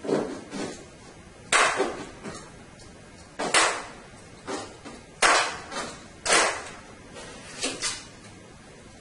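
Staple gun driving staples to fasten new pool table cloth along the rail edge: sharp clacks about a second apart, irregularly spaced, some louder than others.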